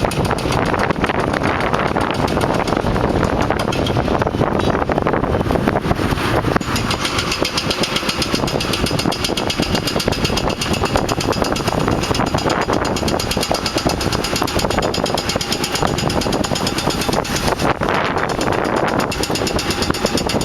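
Power breaker hammering rapidly and continuously at concrete and stone, with a heavy machine's engine running underneath.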